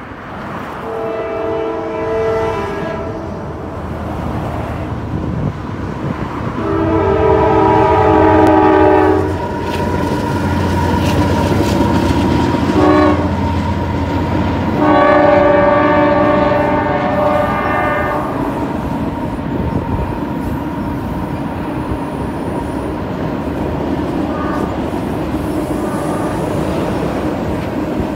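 CSX freight train led by two GE diesel locomotives, its multi-note horn blowing four blasts (long, long, short, long), the signal for a grade crossing, over the low rumble of the diesel engines as they pass. After that the train's cars roll by with a steady rolling noise.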